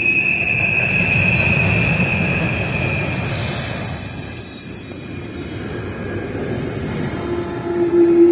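Freight train rolling past, its wheels squealing against the rails over the rumble of the cars. The squeal's pitch shifts about three seconds in, from one steady tone to several higher ones.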